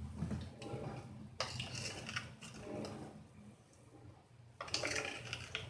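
Quiet handling noises: short scrapes and rustles, one about a second and a half in and another near the end, over a faint low hum.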